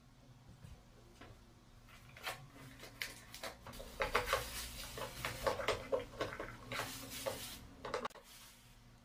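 Handling noise from unpacking a coffee maker: plastic wrapping crinkling, with light knocks and clinks from the glass carafe being handled, busiest from about four to eight seconds in.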